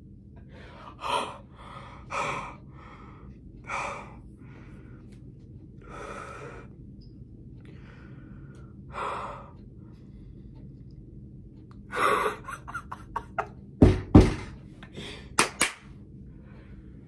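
A person gasping and breathing hard in overwhelmed excitement, about five loud gasps each a second or more apart. Near the end comes a quick run of sharp slaps with two heavy thumps in the middle of it.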